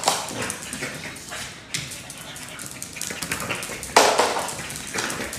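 Small dog scampering across a tiled floor, its claws clicking and tapping on the tiles, with a short louder dog sound about four seconds in.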